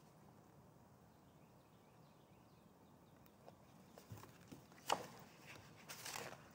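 Near silence, then from about four seconds in, soft rustling of a paperback picture book being handled and its page turned, with one sharper rustle about five seconds in.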